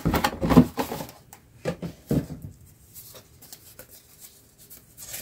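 A clear plastic bag of model-kit sprues crinkling and a thin paper instruction sheet rustling as they are handled, busiest in the first second, then a few separate rustles and taps that grow quieter.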